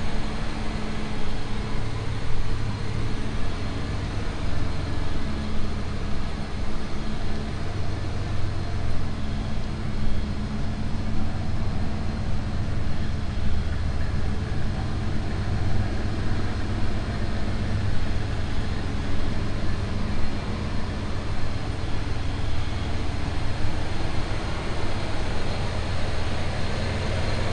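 1993 Ford F-150 SVT Lightning's 5.8-litre V8 idling steadily.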